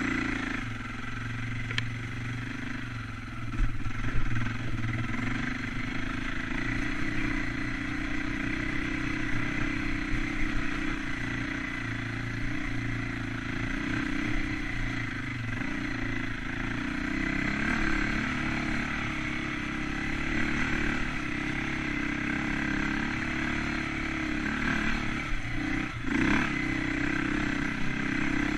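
Dirt bike engine running under load on rough trail, its revs rising and falling continuously, with clatter from the bike over bumps and a few louder knocks, the sharpest about four seconds in.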